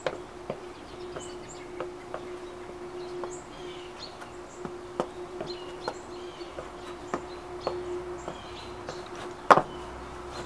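Outdoor ambience: small birds chirping repeatedly over a faint steady hum, with scattered light taps and two sharper knocks near the end.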